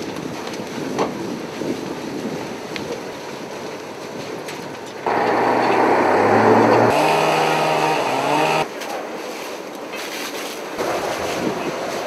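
Steady rushing noise of a fire being fought with water hoses. In the middle it is cut by a louder engine-like drone with a steady pitch, which starts and stops abruptly after about three and a half seconds.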